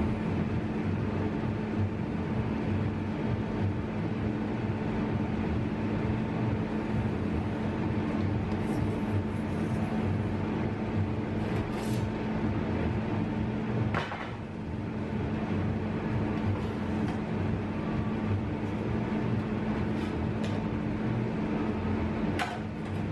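A steady mechanical hum with a low rumble from running workshop equipment, with a few light clicks and knocks of a sheet-steel repair panel being handled and laid against the car body.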